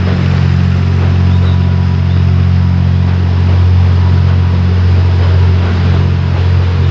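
Diesel train engine running steadily, a loud deep drone that holds one pitch throughout.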